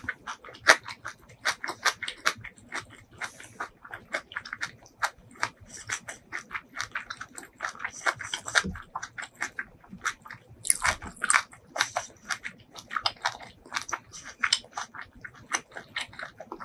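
A person chewing food close to the microphone: rapid wet mouth clicks and smacks, several a second, with a few louder bites, the loudest just after the start and around eleven seconds in.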